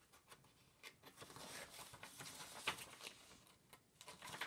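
Faint handling of a hardcover picture book as its pages are turned: soft paper rustles with a few small ticks.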